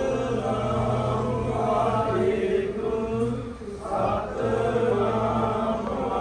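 Group of voices chanting Sikh devotional kirtan in long phrases, with short pauses between phrases, over a steady low drone.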